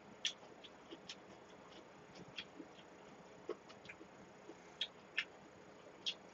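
Faint eating sounds: a dozen or so short, irregular clicks and smacks of chewing and of spoons and chopsticks working at acorn jelly soup in steel bowls.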